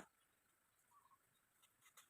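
Near silence, with one faint short bird chirp about halfway through and a few faint ticks.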